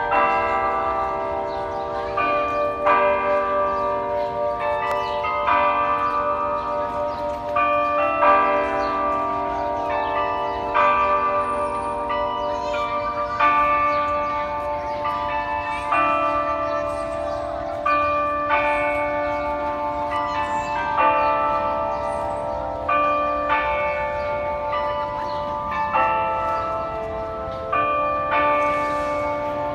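The Delacorte Clock's carillon bells chiming a slow tune, note after note struck and left ringing into the next, with a louder stroke about every two and a half seconds.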